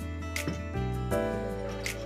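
Background music with held notes that change every half second or so, with a few light clicks.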